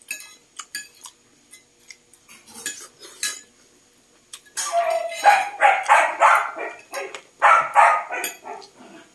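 Cutlery and dishes clinking, then from about four and a half seconds in a dog barking in a quick run of repeated barks, pausing once briefly.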